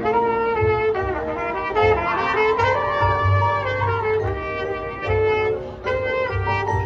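High school marching band playing: full brass chords carry the tune over low drum hits, with sliding brass lines about two seconds in.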